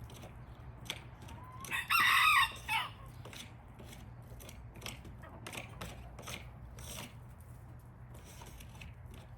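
A chicken calls once, loud and about a second long, nearly two seconds in. Scattered light clicks and a steady low hum lie under it.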